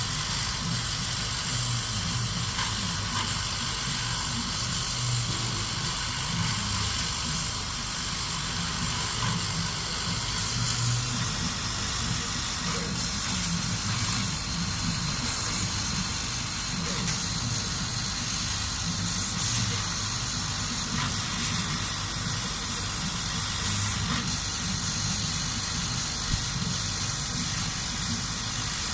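Kamach 1290 laser cutting and engraving machine running: a steady mechanical whir and hiss with a thin, steady high whine.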